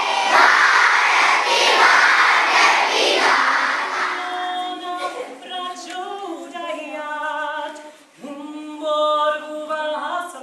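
Many children's voices fill a hall at once. Then, from about four seconds in, a woman sings a solo without accompaniment, holding long notes, with a short break near eight seconds.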